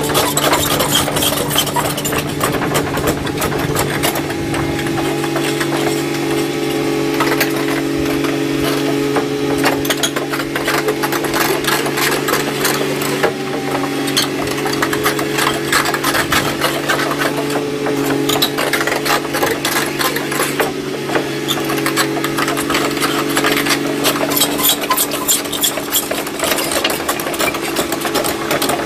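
Tracked excavator crawling slowly over a rubber speed bump: its engine runs steadily while the steel track links keep up a dense, irregular clicking and clatter.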